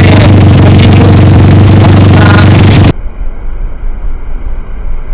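Motorcycle engine running steadily and very loud, close to the microphone. About three seconds in it cuts off abruptly to a quieter, muffled low rumble.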